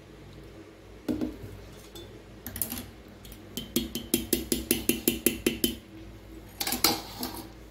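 Metal utensils clinking against a steel mixing bowl as jaggery syrup is strained into rice flour: a couple of single clinks, then a quick run of about ten sharp taps, about five a second, and another clink near the end.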